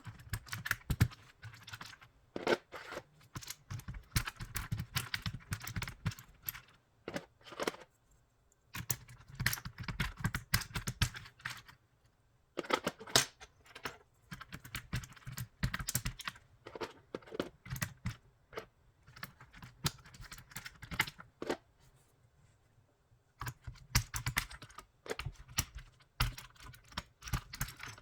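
Keycaps being pulled off an aigo A108 hot-swap mechanical keyboard with a keycap puller: quick plastic clicks and clatter in bunches, with a few short pauses.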